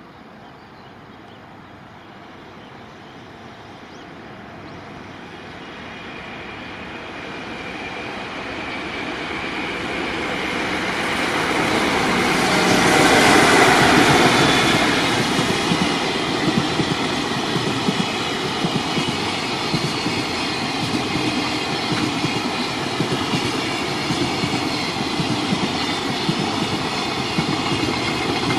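Freight container train hauled by an EF66 electric locomotive approaching and passing. It grows steadily louder to a peak about 13 seconds in as the locomotives go by, then the wagons keep rolling past with a steady rumble and clattering of wheels over rail joints.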